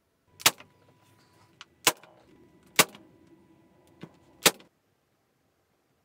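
A brad nailer firing four times, sharp snaps roughly a second apart, with a couple of fainter clicks in between, driving brads into pallet-wood boards.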